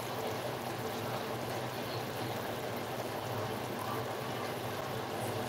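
Chicken adobo simmering in its vinegar sauce in a pot, a steady bubbling.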